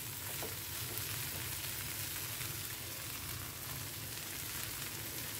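Chopped onion, tomato and green chilli frying in a pan, a steady quiet sizzle, while a wooden spatula stirs the mixture.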